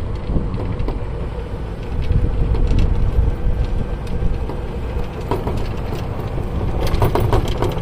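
Electric golf cart driving along, with a steady low rumble of wind and road noise on the microphone and a few light rattles and clicks near the end.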